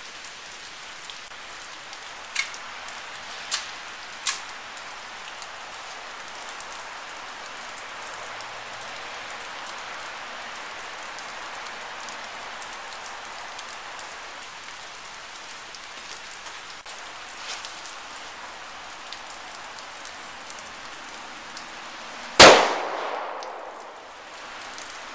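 Steady hiss of rain, with a few light sharp ticks early on. About 22 seconds in comes a single shot from a Walther P22 .22 LR pistol, sharp and much the loudest sound, with a short echo dying away after it.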